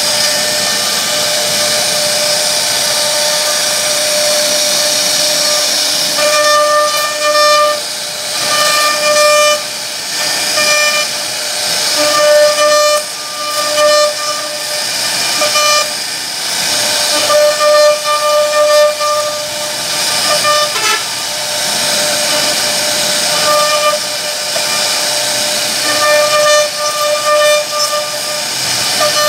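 CNC router carving a wooden panel: the spindle gives a steady high whine, and from about six seconds in a fixed-pitch humming tone keeps starting and stopping as the machine moves through the cut.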